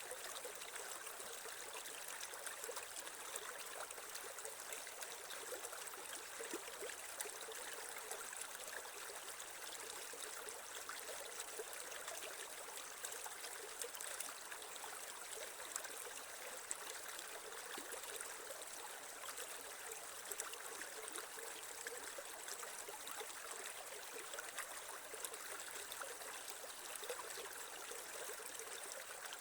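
Creek water flowing steadily, an even rushing hiss with small splashes now and then.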